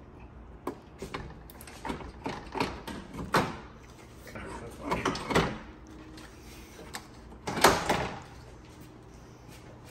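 Irregular clicks, clunks and knocks of parts being handled and fitted by hand, with a few louder knocks scattered through.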